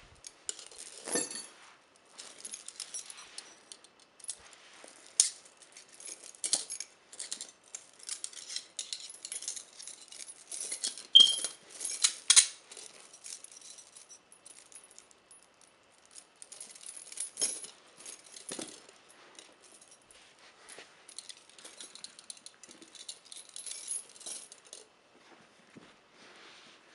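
Steel chain links and metal handcuffs being handled: an irregular metallic rattling and clinking, with the loudest clanks about halfway through. It dies down near the end.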